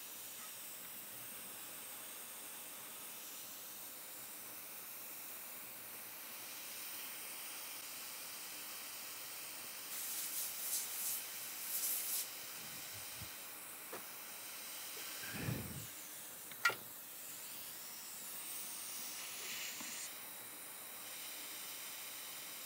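Steady background hiss. A short spell of faint high crackling comes about ten seconds in, and a low thump and a sharp click come about two-thirds of the way through.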